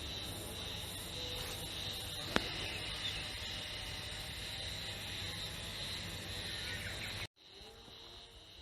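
Japanese spring cicadas (harusemi, Terpnosia vacua) calling in a steady high chorus, with a single sharp click about two seconds in. Near the end the chorus cuts off abruptly and continues more faintly.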